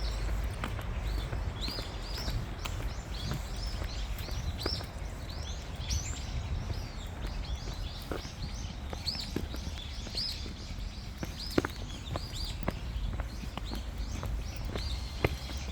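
Birds chirping over and over in short, high, arching calls, with scattered sharp clicks and a steady low rumble underneath.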